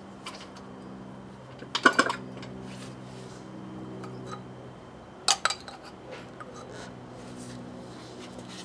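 Short metallic clinks and knocks as a BMW K75's rear wheel is worked off its hub: a cluster about two seconds in and another just past five seconds. A faint steady hum runs underneath.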